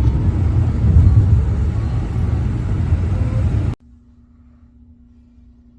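Low rumbling road noise, as heard inside a moving car, that cuts off abruptly a little under four seconds in; after the cut only a faint steady hum remains.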